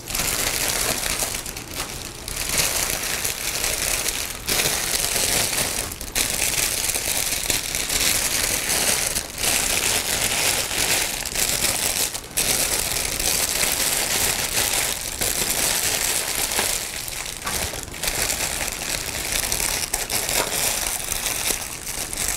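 Clear cellophane wrap crinkling steadily as it is gathered up by hand around a dish of cookies, with a few brief pauses.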